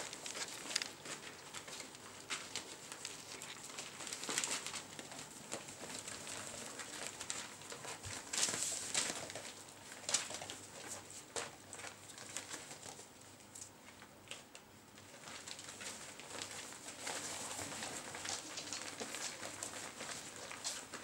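Poodle puppies playing on a plastic sheet and bedding: crinkling, rustling plastic and scrabbling paws, with small high squeaks. The rustling comes and goes, busiest about eight to ten seconds in.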